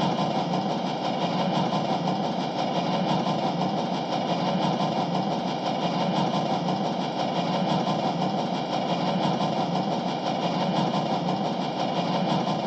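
A steady mechanical drone like a running engine, holding level throughout.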